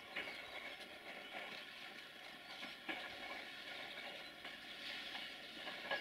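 Passenger train coaches rolling away on the rails, a steady faint rumble with a few separate sharp wheel knocks, the loudest near the end.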